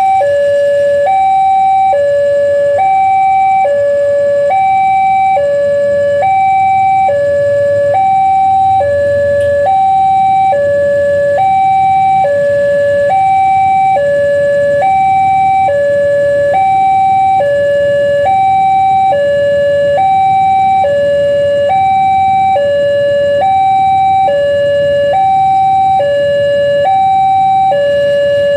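Railway level-crossing warning alarm sounding an unbroken two-tone signal, alternating between a higher and a lower tone about every half second. It signals that the barriers are down for an approaching train.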